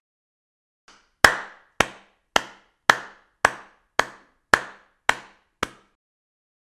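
A faint tick, then nine sharp, evenly spaced impacts about half a second apart, each ringing out briefly, in otherwise dead silence.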